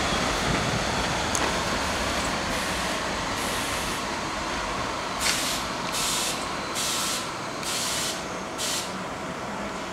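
Vintage New York City subway train rolling slowly into the station, its running noise dying away as it brakes to a stop, then about five short sharp hisses of air from its brakes in the second half.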